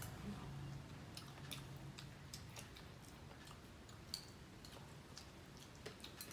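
Faint eating sounds: scattered small clicks of chopsticks against a bowl, with quiet chewing.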